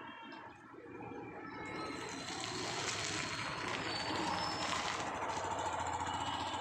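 Water running from a kitchen tap into a sink, building up about a second and a half in and then running steadily.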